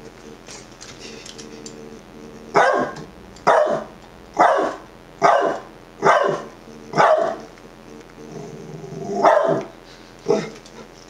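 Dachshund barking at its own reflection in a mirror: six sharp barks about a second apart, then a low growl that builds into a bark, and one last bark near the end.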